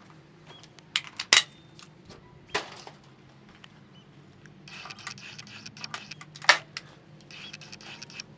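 Sharp metallic clicks and clacks of a shotgun being handled between pairs: a few close together about a second in, another near the middle, and a louder clack about two-thirds of the way through. This is typical of the action being opened, spent cartridges coming out and fresh ones going in before it is closed.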